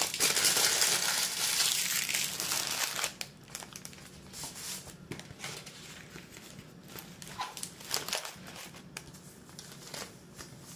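Puff pastry's wrapper crinkling loudly for about three seconds as the roll is pulled out, then softer rustles and light taps of the baking paper as the roll is set down and unrolled.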